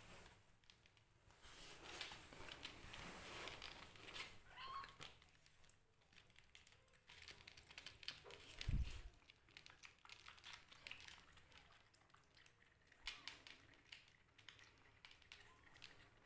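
Faint rustling and scrabbling of a young kitten moving about on a cloth cushion, with one short, faint mew about five seconds in. A single dull thump near the middle is the loudest sound.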